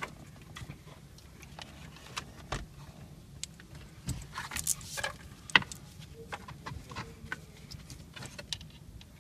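Car-stereo wiring harness and plastic connectors being handled: scattered light clicks, rattles and rustling, with one sharp click a little past halfway.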